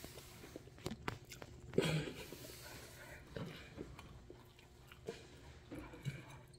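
A person chewing a mouthful of vegetable noodles close to the microphone, with soft wet mouth sounds and scattered small clicks, and one louder sound about two seconds in.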